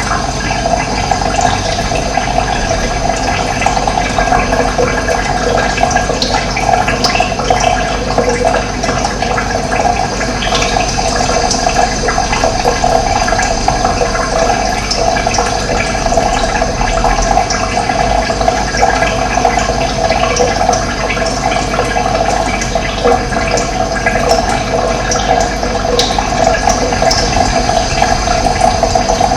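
Running water, a continuous, even rushing.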